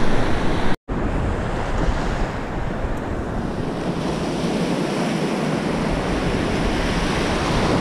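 Surf breaking and washing up the beach in a steady rush, with wind buffeting the microphone. The sound drops out for a split second about a second in.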